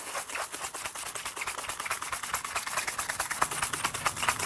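Toothbrush scrubbing toothpaste over a scratched phone screen in quick back-and-forth strokes, a fast, even, scratchy brushing rhythm.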